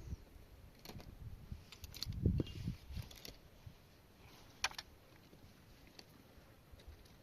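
Scattered light clicks and knocks with a few low thumps, the loudest about two and a half seconds in and a sharp click near five seconds, like small objects being handled.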